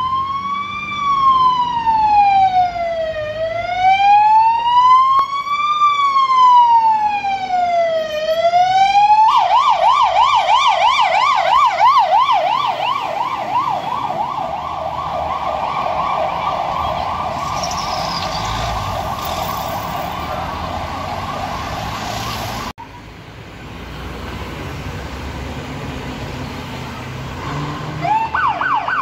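Fire engine siren: a slow wail rising and falling, then switching about nine seconds in to a fast yelp as the truck passes. After a sudden cut there is quieter road and engine noise, and a second fire engine's yelp siren starts near the end.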